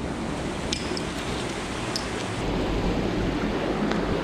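Steady outdoor rush of wind and rain on the microphone, with a few light clicks in the first two seconds. A low wind rumble sets in about halfway through.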